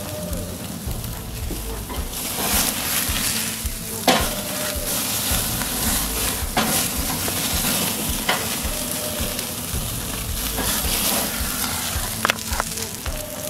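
Bone-in ribeye sizzling on a grill grate over a flaring wood fire, a steady hiss broken by a few sharp pops and crackles.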